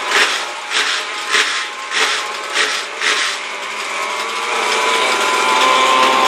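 Mini late model race car engines running as the pack races around the dirt oval. A rhythmic rasping, about two strokes a second, sits over them for the first three seconds. After that the engine note rises steadily as the cars accelerate down the straight.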